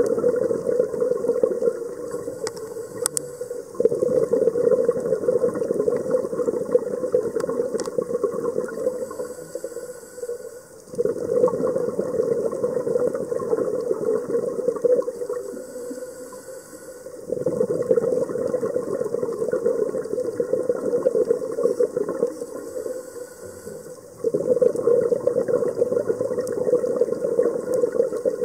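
Scuba diver's regulator breathing heard underwater: a rush of exhaled bubbles starts suddenly every six to seven seconds, four times, each fading over a few seconds before the next.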